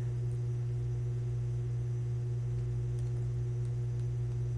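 A steady low hum, one unchanging tone with a few fainter higher tones over it.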